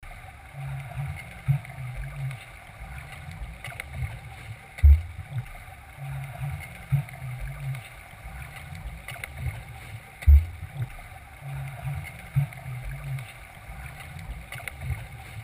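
Pool water heard through an underwater camera: muffled low churning and bubbling from a swimmer's kicks and arm pulls, with a heavy low thump about every five and a half seconds.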